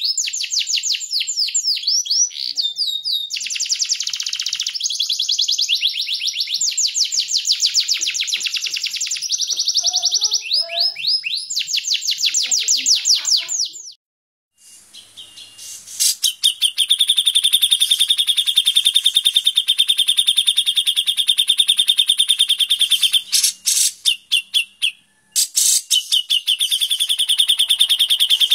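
Songbirds giving rapid, harsh 'tembakan' shot calls. For the first half, fast, closely repeated sweeping high notes; after a short break, a dense, even buzzing trill that drops out briefly about three seconds before the end.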